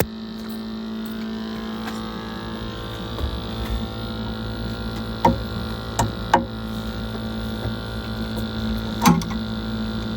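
Glow-worm Flexicom gas boiler firing, with a steady hum made of several tones. This is the humming fault the engineer puts down to airflow, the heat exchanger or the gas valve setting. A few sharp clicks sound over it about five, six and nine seconds in.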